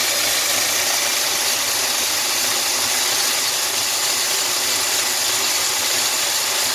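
Mini metal lathe running at speed, turning a NEMA 23 stepper motor that is being back-driven as a generator; a steady, even machine noise with no change in pitch.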